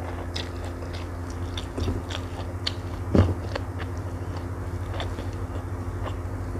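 Close-up chewing of fried tempeh: a run of short crunchy clicks and wet mouth sounds, with one louder knock about three seconds in. A steady low hum sits underneath.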